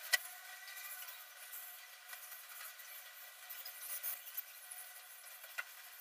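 Faint scratching and rustling with a few sharp clicks: cockatiels moving about in a wire cage, one picking in a plastic feed dish.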